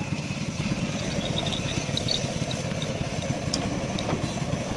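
Engine idling steadily with a low, even rumble, with a few light metallic clicks and taps over it.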